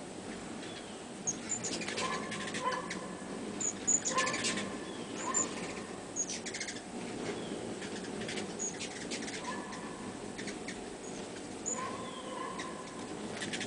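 Several hummingbirds at a feeder: scattered short, very high chip notes and bursts of quick chattering calls, with the whir of their wings.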